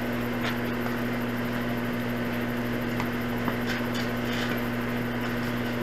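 A steady low hum holding one constant pitch, with a couple of faint taps about three seconds in.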